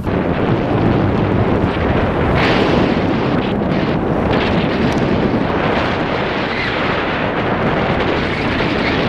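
Wind rushing over the microphone of a camera carried by a paraglider pilot in flight: a loud, steady rush with a few stronger gusts.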